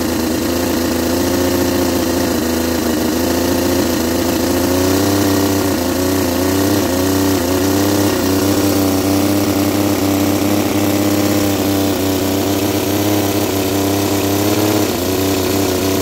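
Howin L6-210 model inline-six engine running steadily, its pitch wavering a little as the speed dips and recovers. It runs, but not perfectly.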